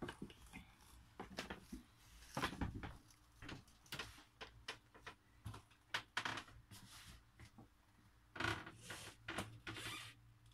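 Quiet, irregular knocks, clicks and rustles of someone stepping down into and moving about a small wood-panelled boat cabin: footfalls and light bumps on wooden fittings.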